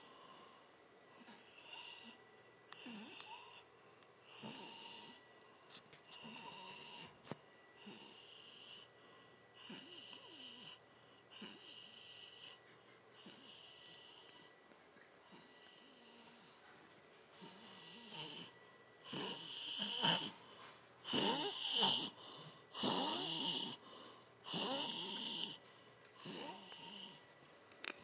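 Snoring with a whistling wheeze, a quick snore about every second. The snores grow louder about two-thirds of the way through.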